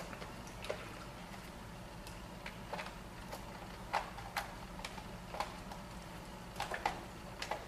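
Faint, irregular light taps and clicks, about a dozen spread unevenly, over a steady low room hum, heard while the painter works quietly with a brush.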